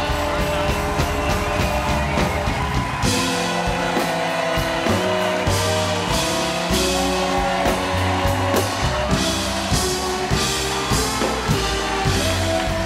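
Band music with a steady beat over a studio audience applauding and cheering.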